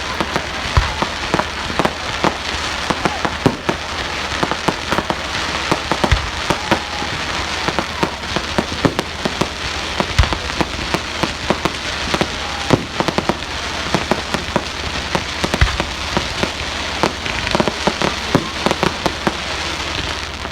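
Fireworks crackling and popping: a dense, irregular run of sharp cracks, several a second, over a steady hiss.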